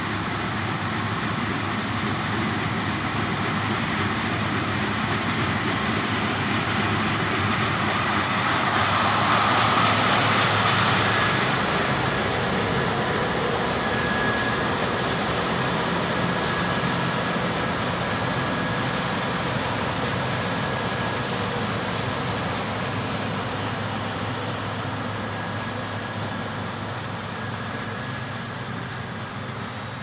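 Claas Lexion 770TT TerraTrac combine harvester running under load as it harvests wheat: a steady mechanical noise with a faint high whine. It is loudest about a third of the way through as the machine passes nearest, then slowly fades as it moves away.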